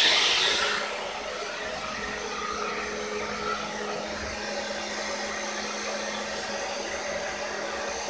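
Hand-held hair dryer running steadily: an even blowing noise with a constant low hum, louder for about the first second, then lower and steady.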